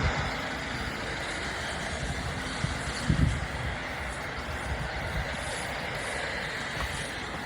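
Air ambulance helicopter running steadily with its engine and rotor noise, and one low thud about three seconds in.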